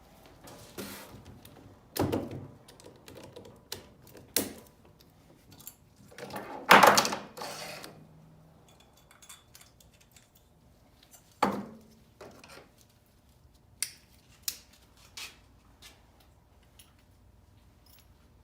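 Irregular clicks, knocks and clinks of tools and metal parts being handled, with a longer, louder clattering rattle about seven seconds in.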